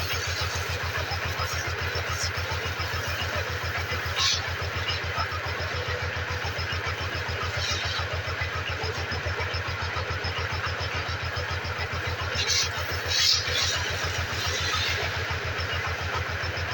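Motorcycle engine idling steadily with an even, pulsing beat, with a few short hissing bursts over it.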